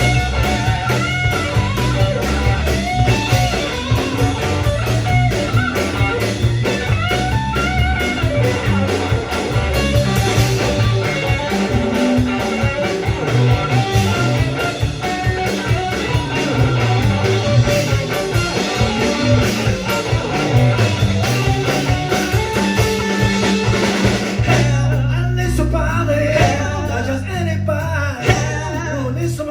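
Live rock band playing a blues-tinged song: electric guitar, bass and drum kit, with a sung vocal. Near the end the drumming thins out to sustained bass notes.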